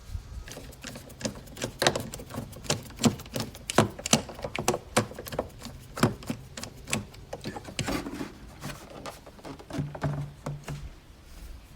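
Irregular light clicks and knocks: a screwdriver working a Phillips screw out of a plastic air filter housing, with the plastic cover being handled.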